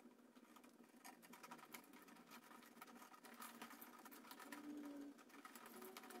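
Near silence, with faint scattered clicks and rustles of thin wires being handled and pushed into an electrical box.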